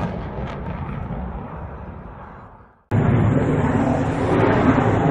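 Fighter jet engine noise, a steady rushing sound that fades away over the first three seconds. After a moment of silence, a louder jet engine noise starts abruptly.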